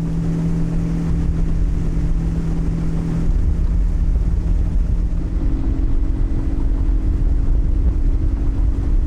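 Outboard motor of a small fishing boat running steadily with a heavy low rumble, its engine note shifting about five seconds in.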